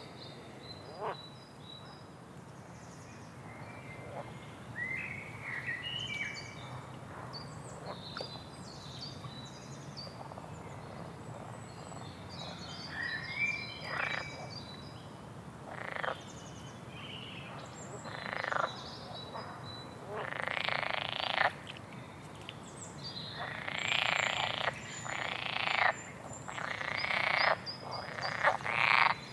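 Small birds chirping and singing in short, high phrases. From about halfway through, a series of louder, harsh calls about a second long comes in, repeating every couple of seconds.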